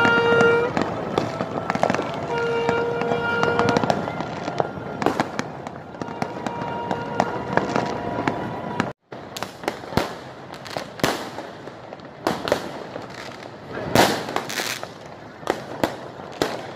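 Fireworks going off repeatedly over a crowd, sharp bangs and crackles coming more often in the second half, with crowd voices underneath. Near the start a horn gives two long steady toots, each about a second or two long.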